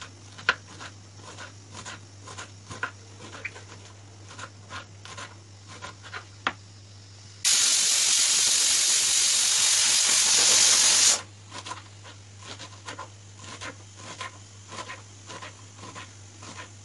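Knife chopping red spinach on a wooden cutting board: light, irregular taps and clicks of the blade on the board. About seven and a half seconds in, a loud steady hiss starts suddenly, lasts nearly four seconds and cuts off abruptly.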